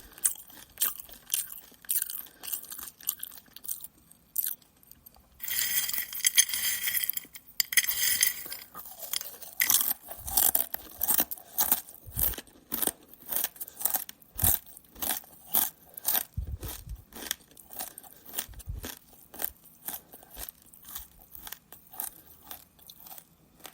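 Close-up chewing of Corn Nuts: a steady run of sharp, dry crunches at about two a second. About six seconds in there is a couple of seconds of denser crackling noise.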